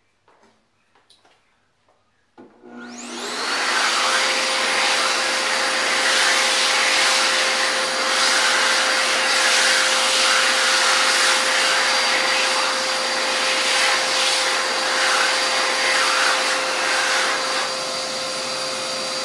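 An 1100-watt World Dryer Airforce high-speed hand dryer switches on about two seconds in and spins up to full speed within about a second. It then blows loudly and steadily while hands are dried under it, a steady whine over the rushing air, and turns a little quieter near the end.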